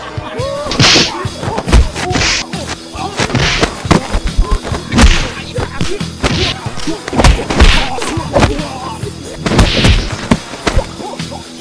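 Fight-scene sound effects: a rapid string of punch and kick hits, each with a swish, over background music.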